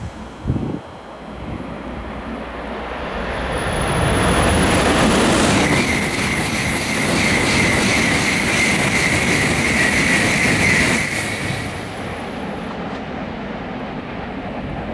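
A Tokaido Shinkansen bullet train running past on the station track. It builds over a few seconds and stays loud for about seven seconds, with a steady high whine over the rushing noise, then fades away.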